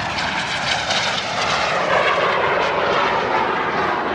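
A small jet aircraft flying an airshow pass overhead: its engine makes a loud, even rushing noise that swells over the first two seconds and then holds steady.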